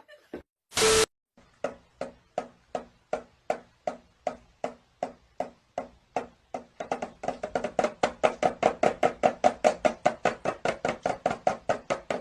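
A short loud burst of noise, then a long run of sharp, evenly spaced knocks, about two or three a second at first, speeding up to about five a second and getting louder about seven seconds in.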